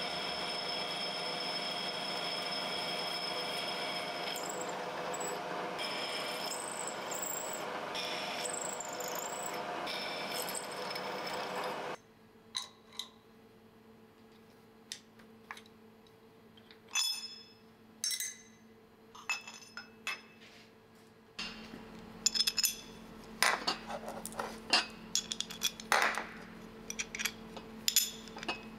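A steady mechanical hum made of several fixed tones stops abruptly about twelve seconds in. Scattered clinks and taps of metal tools and parts being handled follow, and a low hum returns under them in the second half.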